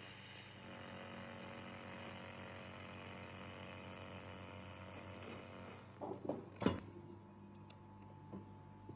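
Steady machine hum made of several fixed tones. About six seconds in there is a short cluster of knocks and clatter, and a quieter hum continues afterwards.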